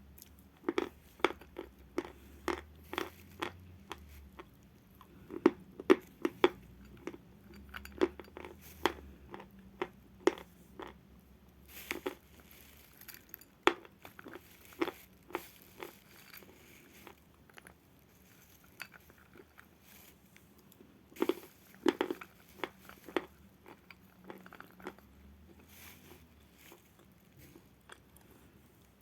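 A person biting into and chewing natural chalk: a long run of sharp, irregular crunches in clusters, thinning out for a few seconds past the middle.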